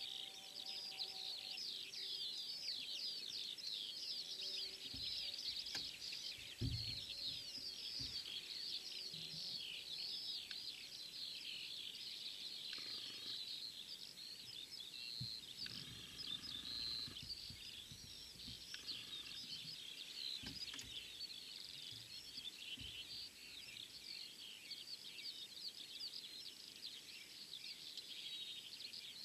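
A dense chorus of many birds chirping and singing at once, overlapping calls without a break, with a few low thumps, the strongest about six seconds in.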